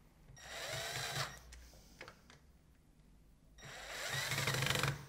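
Metabo cordless drill-driver driving screws to lock a corner bracket into the blind frame's rail: two short runs of the motor, the whine bending in pitch, the second run longer and louder than the first.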